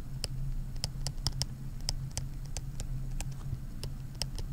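Stylus tapping and scraping on a tablet screen during handwriting, making irregular light ticks several times a second over a steady low hum.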